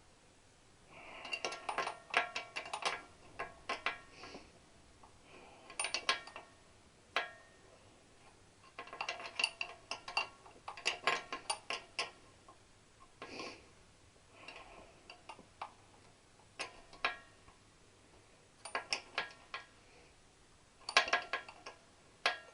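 Metal parts and hand tools clinking and ticking in bursts of quick, ringing clicks while a motorcycle footrest is being fitted, with short quiet pauses between the bursts.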